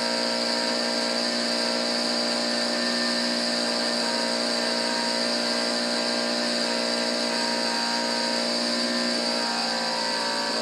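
Bourke engine, an opposed-twin two-stroke, running at a steady high speed with an even, unchanging pitch, heard as played-back footage through a TV's speaker.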